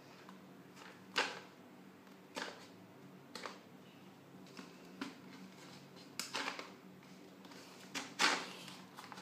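Plastic shampoo bottle being handled while wooden sticks are pushed through holes in its sides: a series of short crinkling scrapes, about six in all, the loudest about a second in and near the end.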